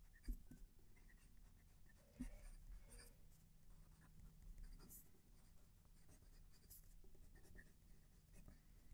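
Conklin All American fountain pen's broad steel nib writing on notebook paper: a faint scratching of the nib with small ticks as strokes begin and lift.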